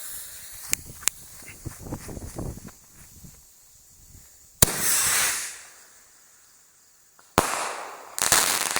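Consumer firework missile launching: a sputtering fuse with scattered crackles, then a sharp pop as the missile pops up, followed by about a second of loud rushing hiss as its motor fires. Further sharp bangs with hissing come near the end.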